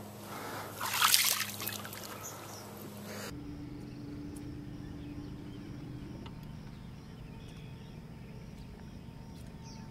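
A single loud splash of water about a second in, as a landed bass is let go back into the lake beside the boat. Then a quieter stretch with a steady low hum that stops about six seconds in.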